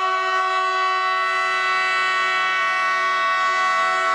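Air horn of a MÁV class M41 diesel locomotive sounding one long, steady blast of several tones at once as the train approaches.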